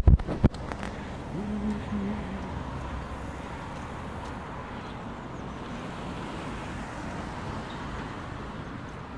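Steady road traffic noise from a nearby street, heard while walking, with a few loud knocks on the phone's microphone at the very start.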